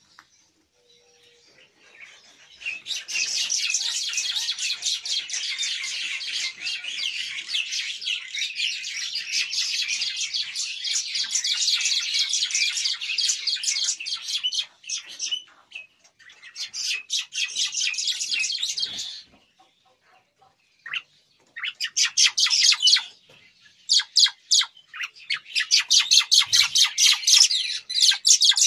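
Caged starlings (Asian pied starlings and black-winged mynas) chattering in a long, dense run of fast, high notes, then in shorter bursts with brief pauses between them.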